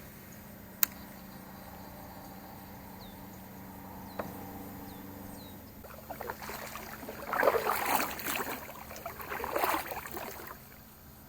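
Water splashing and sloshing at a kayak in a few loud surges in the second half, over a faint steady hum, with a single click about a second in.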